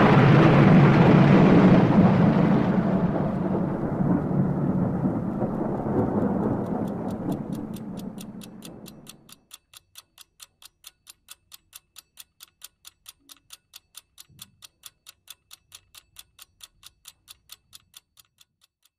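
A loud thunder-like crash rumbles and slowly fades over about nine seconds. Then comes steady clock-like ticking, about five ticks a second, which stops just before the end.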